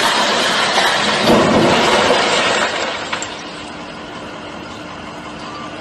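A car smashing into a building's glass facade: a long, loud crash of shattering glass and debris that eases off after nearly three seconds into a lower clatter of falling glass.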